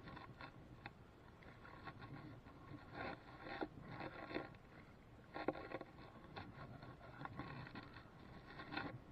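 Irregular scraping and rustling from hands on the fishing line and rod as a small bass is lifted out of the water onto the grassy bank, with a few sharper scrapes in the middle.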